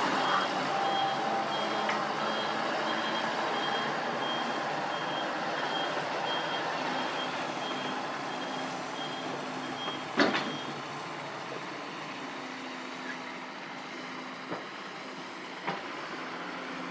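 Heavy machinery's reversing alarm beeping evenly at about two beeps a second for about ten seconds, over steady diesel engine running. As the beeping stops, a loud sharp knock, the loudest sound here, and two fainter knocks follow near the end.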